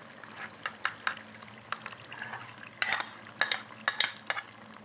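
Irregular clicks and knocks of a spoon and spatula against a bowl and cooking pot as whisked yogurt is added to mutton cooking in its juices, over a faint sizzle from the pot.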